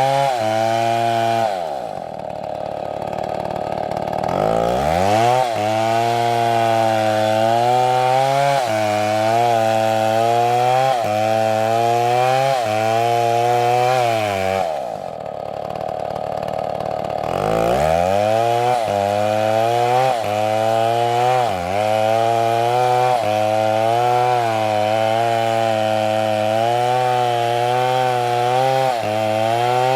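Chainsaw running at high revs, cutting wood, its pitch wavering as it works through the cut. Twice, about two seconds in and again about fifteen seconds in, the engine drops off toward idle and then revs back up.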